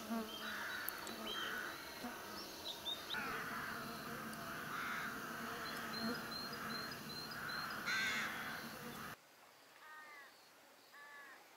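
Birds calling outdoors: repeated harsh, cawing calls with higher chirps and a short run of repeated high notes. The background drops suddenly to a quieter one about nine seconds in, where two more short harsh calls follow.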